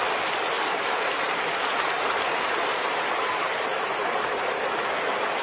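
Steady rush of shallow creek water running where the salmon are crossing, an even noise with no breaks.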